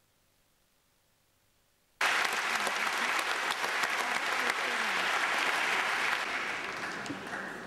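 Near silence, then about two seconds in, a group's applause starts abruptly, dense clapping with a few voices mixed in, easing a little near the end.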